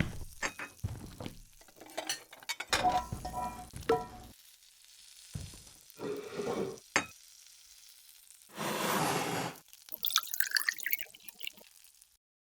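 Foley cooking sounds for a frying bacon-and-eggs scene: a string of short knocks, clinks and clatters, some ringing like crockery, with brief bursts of sizzling and crackling between them. It all cuts off to silence near the end.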